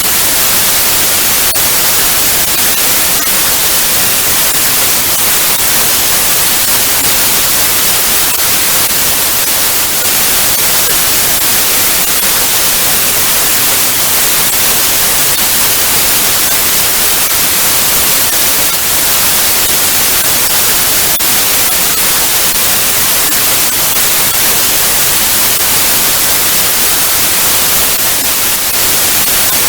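TV static: the steady, loud hiss of an untuned analogue television, with faint crackles here and there.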